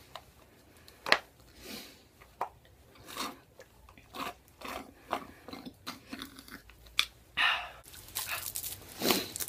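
A person biting and chewing crunchy food, a run of irregular crunches with a few sharper ones.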